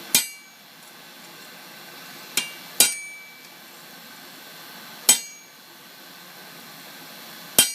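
Hammer striking a steel touch-mark branding stamp into a tool-steel striker: five sharp metal-on-metal blows a couple of seconds apart, one lighter tap just before the second, each with a short high metallic ring. A steady hiss underneath.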